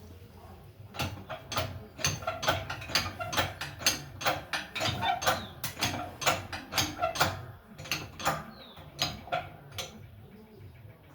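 Irregular series of sharp metallic clicks and knocks, two or three a second, from about a second in until near the end, typical of hand-tool work on metal parts.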